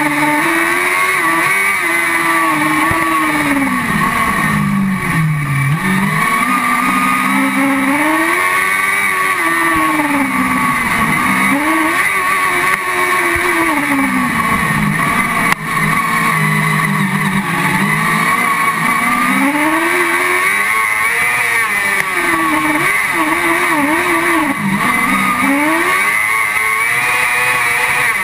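Car-cross buggy's engine heard onboard at racing speed, its pitch climbing hard on the straights and dropping off into the corners, rising and falling every few seconds over a steady rush of wind and tyre noise.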